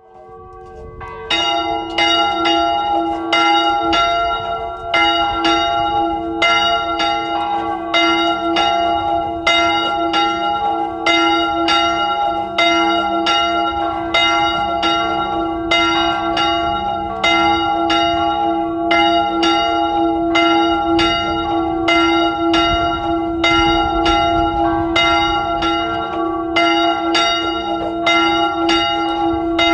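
Swinging church bells rung by hand, clappers striking in a steady run of strokes whose ringing overlaps. The strokes grow loud about a second in.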